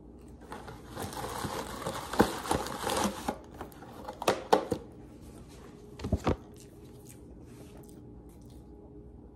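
Kitchen handling noises: a crinkling, rustling sound for about three seconds, then a few sharp knocks and clicks.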